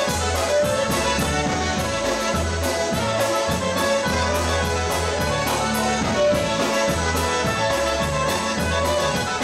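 Live polka band playing an instrumental passage: trumpet and clarinet on the melody with accordion, over electric bass and drums keeping a steady beat.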